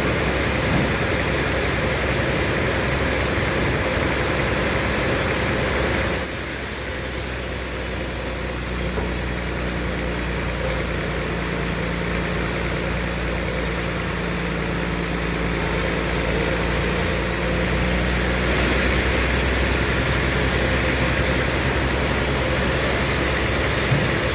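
Sawmill machinery running steadily, with a band sawmill the likely main source. Its sound changes about six seconds in and again around eighteen seconds in.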